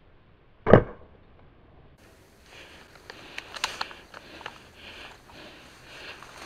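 A single sharp knock a little under a second in, followed a couple of seconds later by rustling and a run of small clicks.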